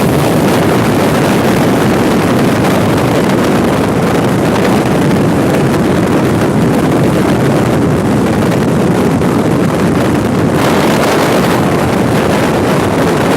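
Loud, steady rushing noise with no clear pitch, turning brighter and hissier about ten and a half seconds in.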